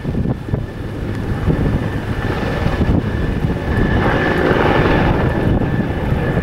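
Bell 412EP helicopter flying past low: the fast beat of its four-bladed main rotor under the steady whine of its twin turbine engines, growing louder over the first couple of seconds and then holding.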